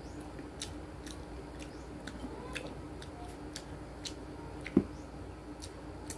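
Close-miked eating of cream cake: chewing with a string of small sharp mouth clicks, and a metal spoon working into the cake. A single louder knock about three-quarters of the way through is the loudest sound, over a steady low hum.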